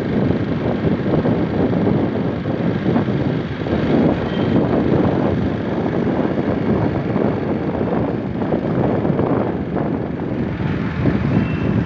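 Wind rumbling over the microphone of a motorcycle riding at speed, mixed with engine and road noise.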